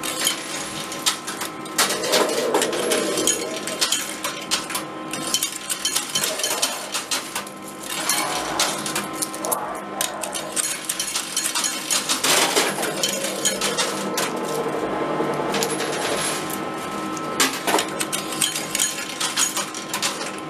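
Metal coins dropping and clinking in an arcade coin pusher machine, a steady scatter of small clicks and clatters, over the machine's steady background tones.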